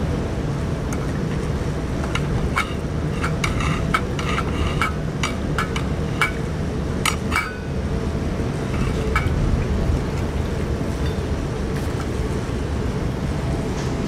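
Cats eating wet food from a stainless steel dish: a run of small clinks and clicks, most of them in the first half, over a steady low wind rumble.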